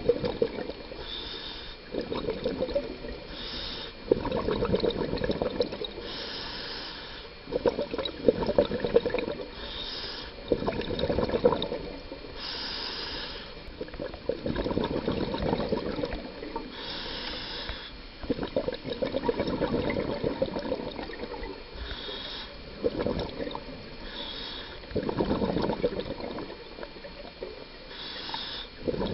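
A scuba diver breathing underwater through a regulator: a short hissing inhale, then a longer bubbling exhale, repeating about every four seconds.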